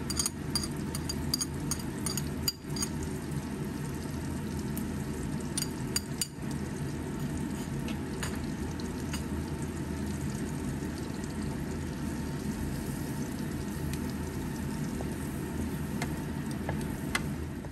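Butter sizzling steadily in a nonstick wok with salted egg yolk crumbs frying in it, with scattered small pops and spits. A wooden spatula stirs and scrapes through the mixture.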